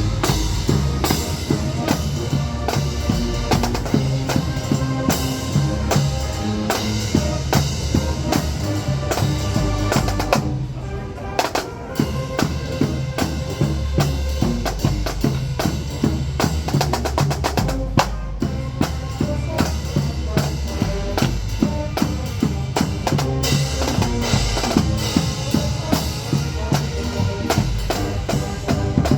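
High school marching band playing, its drumline of snare and bass drums prominent with the winds, with a brief quieter drum-led passage about ten seconds in.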